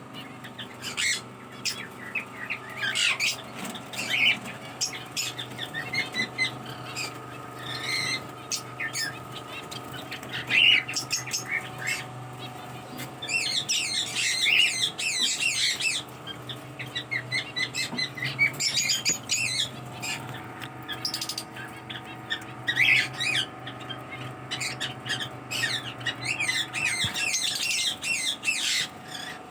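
Pet parrots chirping and squawking in repeated bursts, over a steady background hum.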